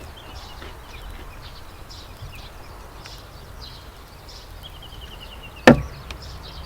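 A single sharp knock, like something hard set down or struck, about five and a half seconds in, over a steady outdoor background with scattered bird chirps and a short rapid trill just before the knock.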